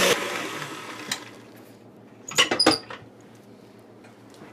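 Stand mixer with a wire whisk is switched off, its motor noise dropping at once and fading away over about the first second and a half. A click follows, then a short cluster of ringing metallic clinks about two and a half seconds in as the whisk and steel bowl are handled to scrape down the butter and cream cheese.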